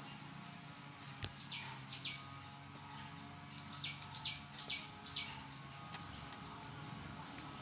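Short high bird chirps, a couple near the start and a quick run of about five around the middle, over a faint steady low hum, with one sharp click a little over a second in.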